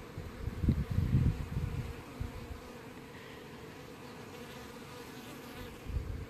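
Honey bees from freshly installed packages buzzing in the air around the hives, a steady hum. Low rumbling bumps come in the first second or so and again near the end.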